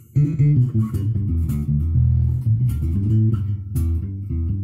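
Eden Disciple 5 five-string electric bass played fingerstyle: a quick run of plucked low notes with a few sharp string clicks, ending on a held note.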